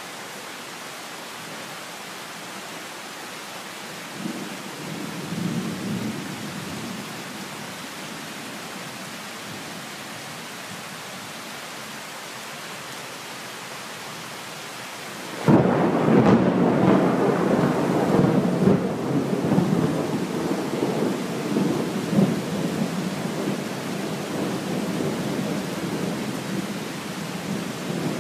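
Steady rain hissing, with a brief low rumble about four seconds in. Past the middle a loud thunderclap breaks suddenly and rolls on in swells.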